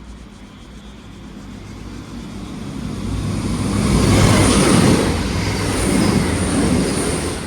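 A CrossCountry Class 221 Super Voyager diesel-electric multiple unit passing through the station. Its engine hum and wheel rumble build up to a peak about four to five seconds in, then begin to fade.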